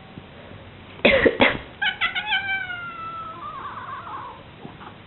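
Two quick harsh coughs, then a domestic cat's long meow that slides down in pitch and wavers before it fades.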